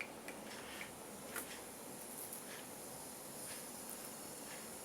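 Quiet room tone with a few faint small clicks and taps spread over the first two seconds or so.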